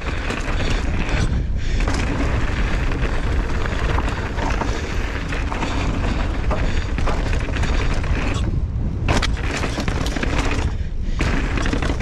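Mountain bike being ridden down a dirt downhill trail: tyres on dirt, rattling and knocks from the bike, and heavy wind rumble on the microphone, with brief quieter moments about 1.5, 8.5 and 11 seconds in.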